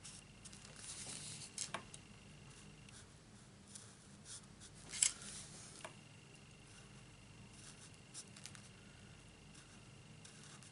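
Old Olive blender marker's nib rubbing and scratching faintly on card stock as leaves are coloured in, with a few small clicks and one sharper tap about five seconds in.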